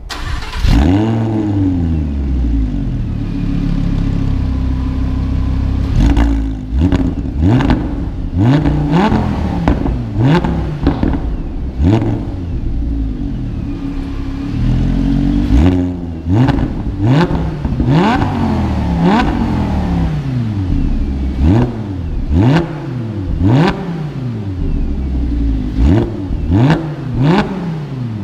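Lamborghini Huracan's V10 engine starting with a sharp flare of revs and settling to a fast idle. From about six seconds in it is blipped again and again to high revs, roughly once a second, with a sharp crack at each blip and short pauses at idle between some runs of revs.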